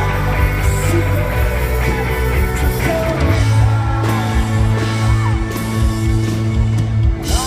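Rock band playing live, loud and continuous.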